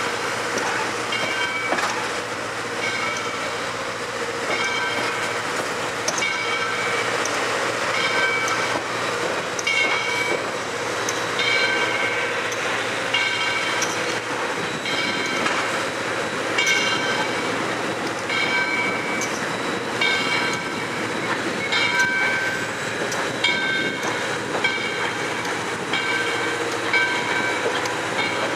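Passenger train car rolling slowly over jointed track: a steady rumble with a brief ringing clack from the wheels about once a second, often in close pairs.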